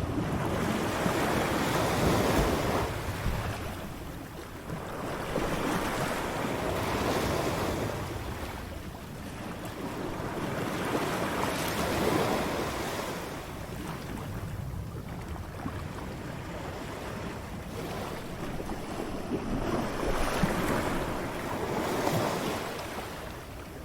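Ocean waves breaking on a shore, a steady wash of surf that swells and ebbs in surges every few seconds.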